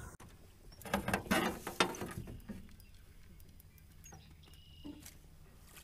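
Fishing reel being cranked, a run of ratchety clicks and rattles lasting about a second and a half, followed by faint handling sounds.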